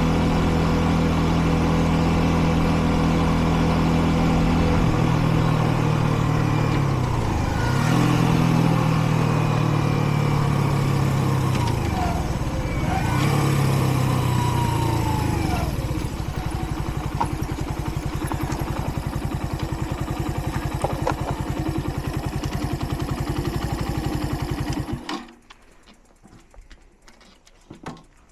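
Kreidler Dice CR 125 motorcycle engine running, its pitch dropping a few times as it slows down. It then settles into an even, pulsing idle, which cuts off suddenly near the end.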